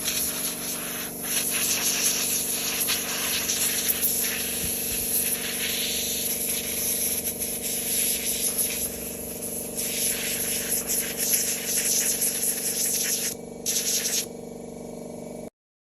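1 hp Daewoo air compressor running with a steady hum while compressed air hisses from its hose in uneven gusts, blowing dust off a brick model. The air stops about 13 seconds in, comes back briefly, then only the motor hum is left until everything cuts off suddenly.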